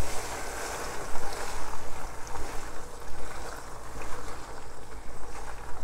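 Spatula stirring a pot of simmering minced-beef bolognese sauce, wet stirring sounds over the sauce's steady bubbling.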